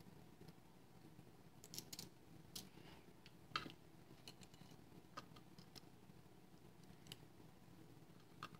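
Faint, irregular clicks of small metal lock parts being handled and set down: the pins and springs of a disassembled American Lock 1105 padlock, about eight clicks in all, the loudest a little past the middle.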